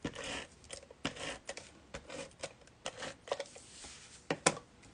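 Adhesive tape runner pressed and drawn across cardstock in several short strokes, laying strips of tape, with a sharp click about four and a half seconds in.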